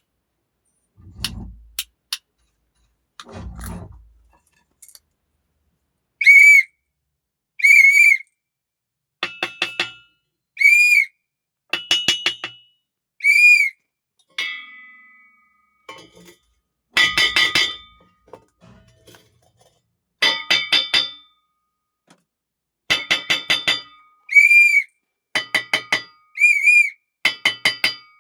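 Foley effects: two dull low thumps, then a series of short, high whistle blasts alternating with clusters of sharp metallic clinks that ring briefly.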